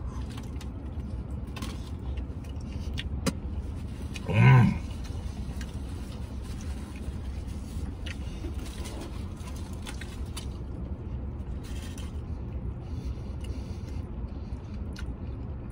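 Steady low vehicle rumble, with a man eating over it: faint chewing clicks and one short hummed "mmm" about four and a half seconds in.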